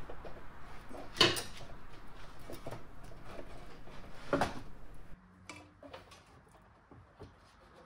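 Metal card rack of an EMS Vocoder 5000 being slid and wiggled out of its cabinet: a rough sliding noise with two sharp knocks, about one second in and about four and a half seconds in. After that it goes quieter, with a few small clicks.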